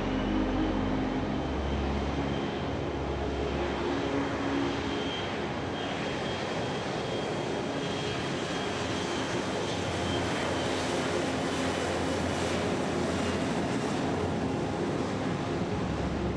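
Twin-engine jet airliner's engines spooled up to takeoff thrust during the takeoff roll: a steady jet roar with a high whine that rises just before and then holds.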